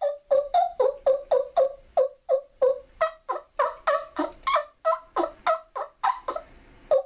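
Wing bone turkey call, a yelper made from a turkey's wing bones, played by sucking air through it into cupped hands: a fast run of short turkey yelps, about three a second, each note breaking downward in pitch, with a short pause near the end.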